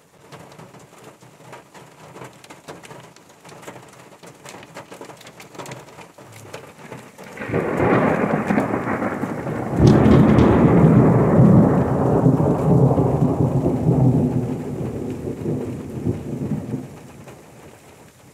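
Rain falling through conifer forest with scattered drop ticks, then a long roll of thunder comes in about seven seconds in, swells to its loudest about ten seconds in as a deep rumble, and fades away over the next several seconds while the rain goes on.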